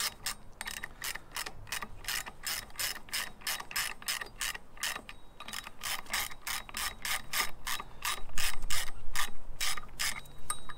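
Ratchet wrench clicking steadily, about four clicks a second, as it turns the puller bolts drawing the fuel pump pulley off its tapered shaft; the clicks grow louder about eight seconds in.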